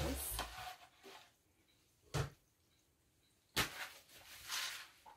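Paper towels rustling as a rinsed piece of cured meat is patted dry on a plastic cutting board, starting about three and a half seconds in, after a single short knock about two seconds in. Running tap water fades out in the first second.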